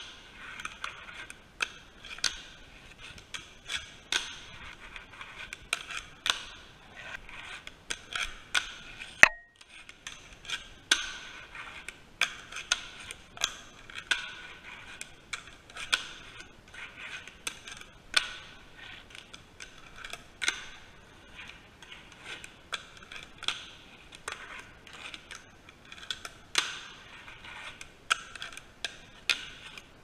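A fingerboard's small wheels rolling on wooden ramps and ledges, between frequent sharp clacks as the board is popped and lands, roughly one or two a second. One brief break a little after nine seconds, right after the loudest clack.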